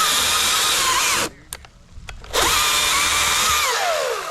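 Electric motor of a cordless power tool triggered twice: each time it spins up to a steady high whine, runs for about a second, then winds down as the trigger is released.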